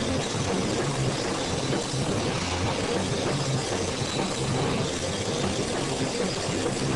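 Loud live band playing: distorted electric guitar and bass with drums and cymbals, merging into one dense, continuous wall of sound.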